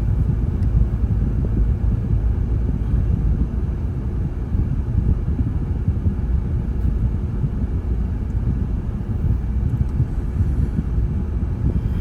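Steady low rumble of a vehicle driving along a road, engine and tyre noise heard from inside the cabin.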